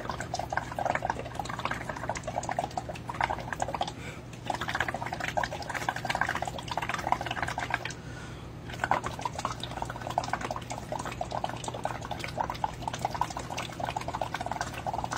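Bubbling of air blown through a plastic drinking straw into a cup of water, a rapid crackle of bubbles in three long bouts with brief pauses for breath. The exhaled carbon dioxide is a test of whether the water's pH indicator colour holds or changes.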